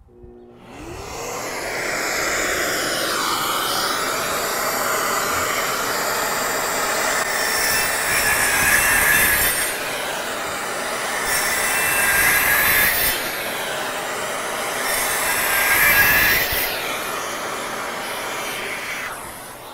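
Festool CT 36 dust extractor starting up about half a second in and running steadily, while a DeWalt Atomic 20V 4-1/2" cordless circular saw cuts MDF with its dust port hooked to the extractor, the cutting growing louder a few times.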